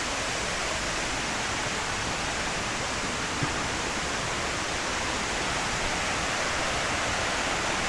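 Steady rushing of a jungle waterfall, water pouring over rock tiers, with a single short tap about three and a half seconds in.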